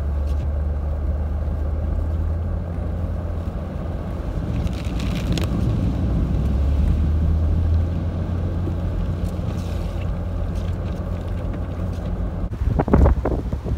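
A steady low rumble. Near the end it gives way to strong, gusty blizzard wind buffeting the microphone.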